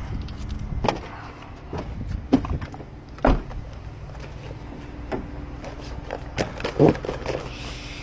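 Scattered knocks and clicks of things being handled, loudest three times: about two and a half seconds in, just past three seconds, and near seven seconds. A low steady rumble runs underneath.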